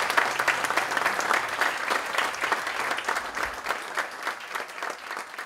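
Audience applauding at the end of a live song, the clapping slowly dying away.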